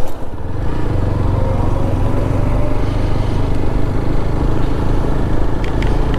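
Motorcycle engine running while riding along, its pitch rising a little about a second in as the bike speeds up, with wind rushing over the microphone.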